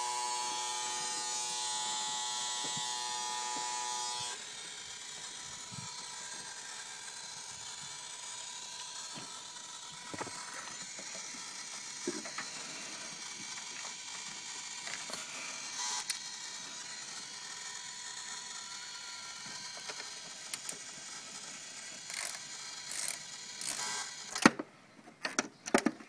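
Steady buzzing from a 1995 Acura Integra that won't start, the strange noise the owner can't pinpoint. It stops abruptly about four seconds in, leaving a fainter steady hum. A few clicks and knocks come near the end.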